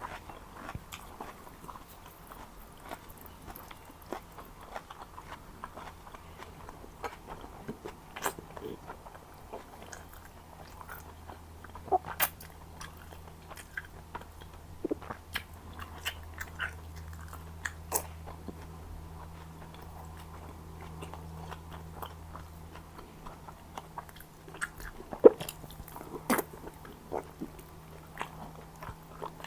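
Close-miked chewing and biting while eating mansaf, with frequent wet mouth clicks and small crunches. A few sharper bites stand out, the loudest about three-quarters of the way through.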